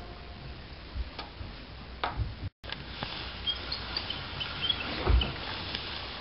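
Faint steady room hiss with a few scattered soft clicks and knocks, the strongest about five seconds in, and a brief cut-out of all sound about two and a half seconds in; faint high chirps or squeaks come and go near the middle.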